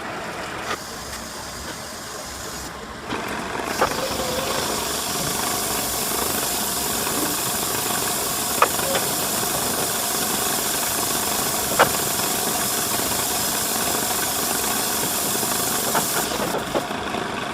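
A steady loud hiss that grows louder about three seconds in, with a few sharp clicks spaced several seconds apart.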